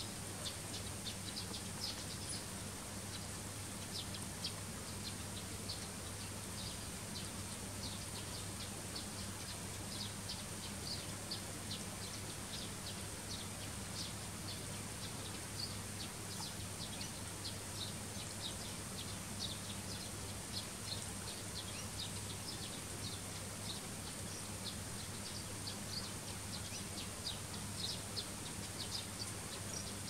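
Eurasian tree sparrows chirping: short, high chirps repeated a few times a second, continuing without a break.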